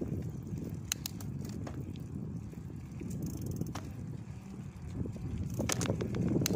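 Mountain bike ridden on its back wheel along a tarmac path: the tyre's steady low rolling rumble, with scattered sharp clicks and crackles, getting louder near the end.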